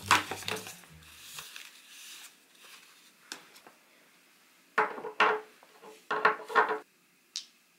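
Rustling of a paper shopping bag and a mesh drawstring pouch, then small glass nail polish bottles knocked and set down on a wooden table in two quick clusters of clatters, about five seconds in and again about six and a half seconds in. Background music stops in the first second and a half.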